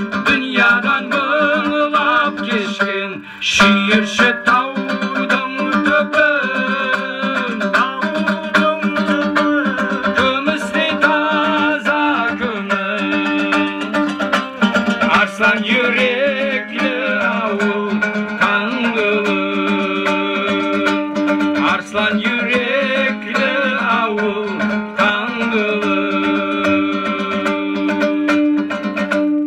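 Two long-necked plucked lutes playing a folk tune over a steady drone: an instrumental passage between the verses of a Nogai folk song.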